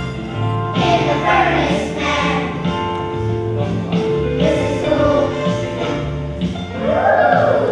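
Children's choir singing a gospel song with instrumental accompaniment and a moving bass line.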